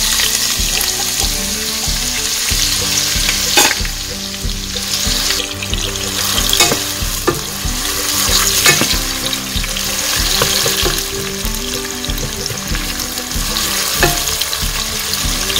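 Sliced onions sizzling in hot oil in a nonstick pot, freshly added and being sautéed, with a steady hiss. A wooden spatula stirs them, giving a few sharp scrapes and knocks against the pot.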